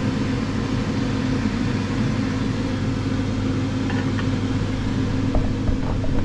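Ninja dual-drawer air fryer running with a steady hum while its second drawer is still cooking, with a few light clicks and knocks from metal tongs setting an egg down on a plate.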